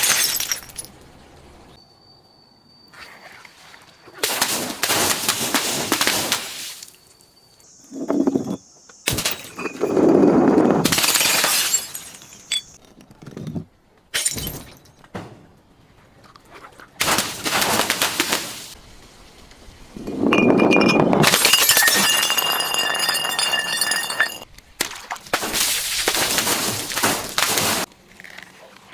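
Glass bottles breaking and being crushed in a series of crunching, shattering bursts, each lasting one to three seconds with quieter pauses between them. One longer burst carries ringing glass tones.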